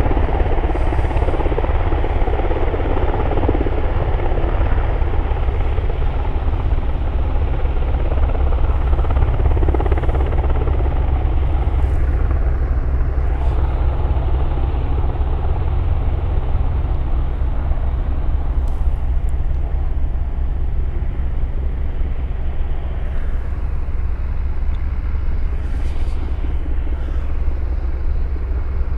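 Helicopter's rotor and turbine engines running close by: a loud, steady sound with most of its weight low down, easing off slightly near the end.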